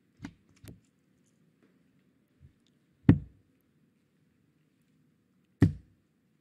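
Two steel-tip darts striking a bristle dartboard, a sharp thud about three seconds in and another about two and a half seconds later, over a low, steady hall murmur.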